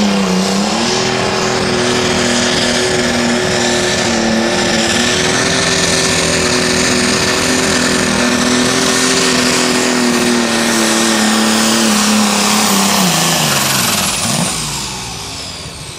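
International super stock pulling tractor's engine running flat out under load as it drags the sled, steady in pitch with a high whine over it. About thirteen seconds in the engine pitch falls and the sound dies away as the pull ends.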